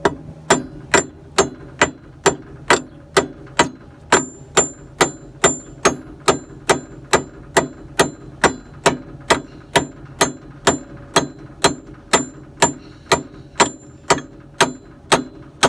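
Steel hammer tapping a roll pin into a Krone SafeCut cutter-bar hub to centre it and drive it flush. The blows are steady and even, about two a second, each with a short metallic ring.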